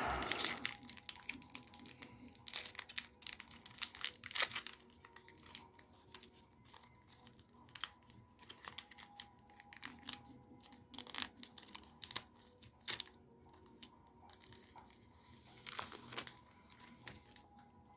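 A Magic: The Gathering booster pack's plastic wrapper being torn open and crinkled, with the cards handled: a string of irregular sharp crackles and snaps.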